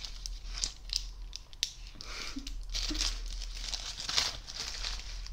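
Crinkly red wrapping paper handled close up, crumpled and pulled between the hands in irregular crackling rustles.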